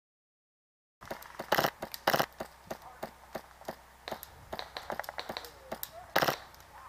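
Silent for about a second, then airsoft gunfire. There are three louder sharp shots, about a second and a half in, half a second later, and near the end, over many lighter clicks and pops.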